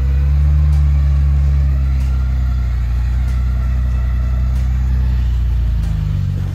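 Toyota Land Cruiser 70-series pickup's engine running steadily at low revs as the truck creeps over rough ground, a deep steady rumble that eases slightly near the end.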